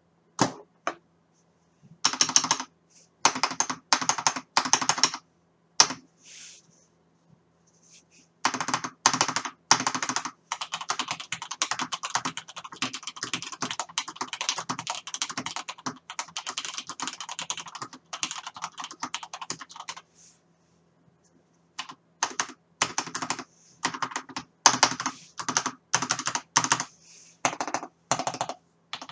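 Mechanical keyboard with lubed Gateron Yellow linear switches being typed on, heard through a Logitech C270 webcam's built-in microphone. Short groups of keystrokes give way to a long stretch of fast continuous typing, then a pause, then more bursts of keys near the end, over a faint steady hum.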